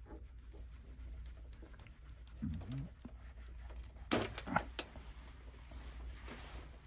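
Wires and small plastic plug connectors handled by hand: faint rustling and scattered clicks, with a quick cluster of sharp clicks about four seconds in, over a steady low hum. A brief low murmur about two and a half seconds in.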